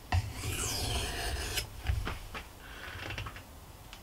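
Knife blade stroked across the 1000-grit face of a KUNQUN white corundum whetstone: one long scraping stroke in the first second and a half, then a few light clicks and a shorter, softer scrape.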